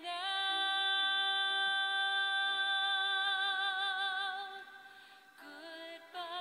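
Background music: a high sung voice, likely a woman's, holds one long note that turns to vibrato, over a soft sustained accompaniment. The note fades about five seconds in and a new note begins.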